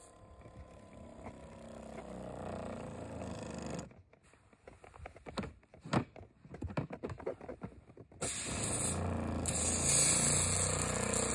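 A few knocks and clicks as the sprayer's tank lid is handled. Then, about eight seconds in, the sprayer's 12-volt diaphragm pump switches on suddenly and runs with a steady hum under the hiss of water spraying from the wand into the tank.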